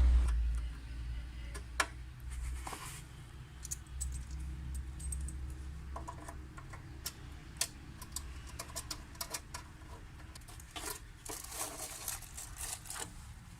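Small metal hardware being handled, with scattered light clicks and short rattles that cluster more densely about eleven to thirteen seconds in. A low hum fades out in the first second.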